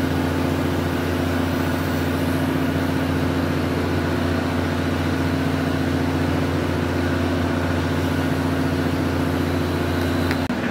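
Steady low mechanical hum, like a motor running, with a brief dip near the end.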